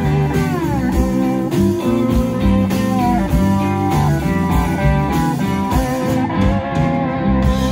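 Live rock band of electric guitars, bass guitar and drums playing, with a guitar note sliding down in pitch under a second in. Near the end the drums stop and a held chord rings on as the song closes.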